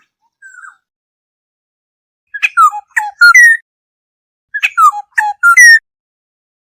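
Black-hooded oriole calling: a faint short note, then two loud phrases of several whistled, sliding notes about two seconds apart, as used in playback to lure the birds.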